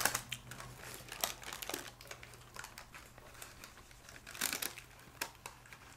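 Paper sandwich wrapper crinkling and rustling as a sandwich is handled in it, in short scattered crackles with a louder flurry about four and a half seconds in.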